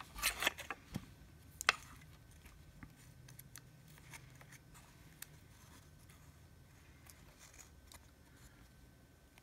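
Small hand tools and fine steel music wire handled on a wooden board: a handful of sharp clicks in the first two seconds, as the pliers are laid down and the wire spring is placed, then only faint light ticks over quiet room tone.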